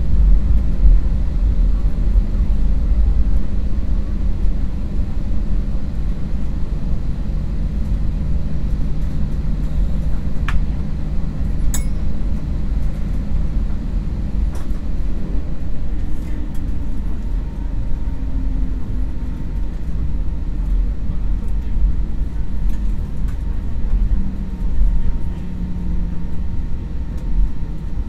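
Airbus A320 cabin noise while taxiing after landing: a steady low rumble from the idling engines and the plane rolling over the tarmac, with engine hum underneath. A couple of short clicks sound a little before the middle.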